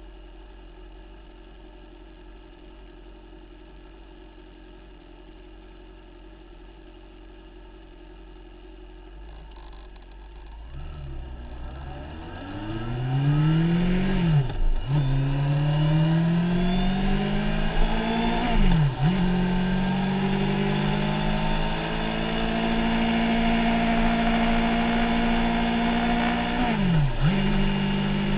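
Motorcycle engine running quietly at idle, then pulling away about ten seconds in. Its note climbs and drops back three times as it shifts up through the gears, holding a steady pitch between the last two shifts.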